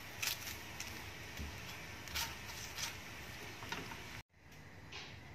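Metal spoon tapping and scraping a few times on a paratha on a hot tawa while ghee is spread over it, over a steady low hiss. The sound cuts out for a moment about four seconds in and comes back as a quieter room tone with one more click.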